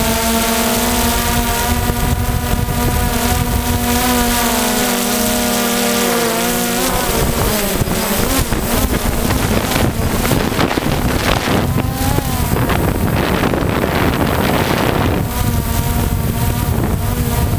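Camera drone's electric motors and propellers whining, picked up by the camera it carries, with wind rushing over the microphone. The whine shifts in pitch as the motors change speed, and after about seven seconds it is mostly buried under wind rush, coming back briefly near the end.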